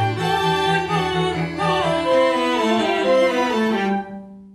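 String quartet of two violins, viola and cello playing the closing bars: a low note pulses about four times a second, then a line of notes steps downward. The final chord is released about four seconds in and rings away briefly.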